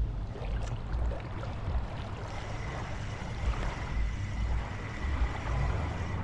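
Wind buffeting the microphone in uneven gusts over the steady wash of surf on the shore.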